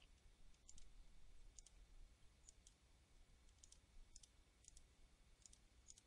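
Faint computer mouse clicks, about seven short ticks scattered over a few seconds, over a low steady hum.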